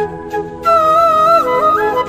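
Background music: a flute melody moving in steps between held notes over a soft accompaniment.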